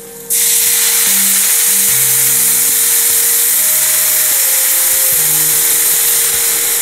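Orange juice poured into a hot pan of caramelised butter, sugar and citrus zest, hitting it with a sudden loud sizzle a moment in and then sizzling steadily.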